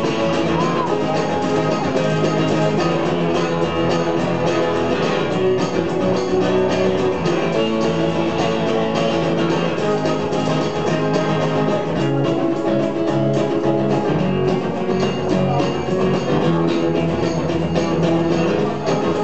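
Acoustic guitar strummed steadily through an instrumental passage of a song, with a hand-shaken percussion instrument keeping time over it.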